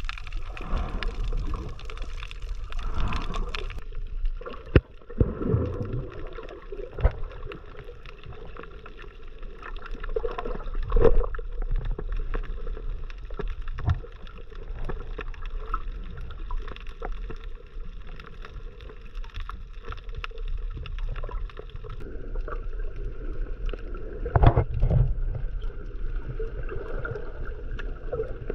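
Muffled underwater water noise picked up by a camera in a waterproof housing while snorkeling: a steady gurgling, sloshing wash with a few sharp knocks.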